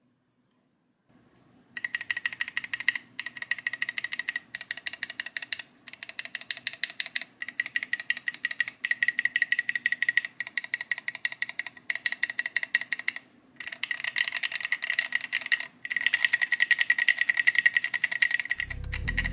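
Linear mechanical keyboard switches (SP-Star Luminous Cyber) in a polycarbonate macropad being pressed rapidly, clacking in quick runs of many keystrokes with short pauses between them. Music comes in near the end.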